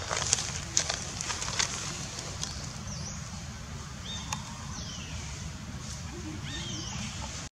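Outdoor ambience: a bird gives a short whistled call that sweeps down and levels off, several times, over a low steady rumble, with a few sharp clicks in the first couple of seconds.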